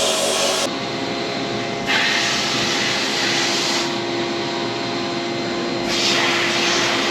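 Sandblaster nozzle at about 40 psi blasting in on-off bursts of hiss, each lasting a second or two, over a steady machine hum. The abrasive is stripping the high-gloss finish off a suppressor to prepare it for Cerakote.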